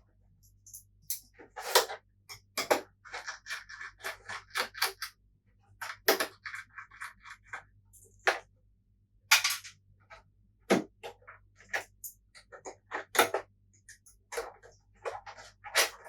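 Screwdriver backing out small screws and plastic console parts being handled during PS4 Pro disassembly: irregular sharp clicks and scratchy scrapes, with two stretches of rapid ticking, over a faint electrical hum.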